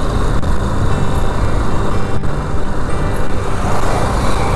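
Motorcycle engine running steadily while riding along a road, with a constant rush of road noise.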